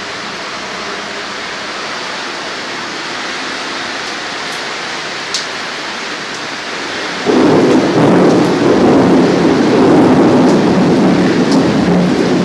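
Steady rain hissing. About seven seconds in, a loud, low rumble of thunder sets in and keeps rolling.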